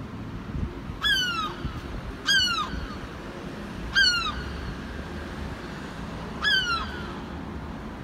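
A gull calling four times, each a short falling cry, over a steady low rumble of traffic.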